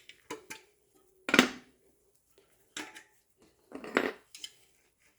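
Metal clinks of 5 mm hex keys on a Shimano WH-9000 front hub axle as the axle is snugged up from both ends: about six short clinks, the loudest about a second and a half in.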